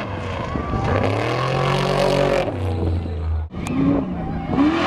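Rally car engine revving hard on a gravel stage, its pitch climbing and then falling away. The sound cuts off abruptly about three and a half seconds in and gives way to another stretch of engine noise.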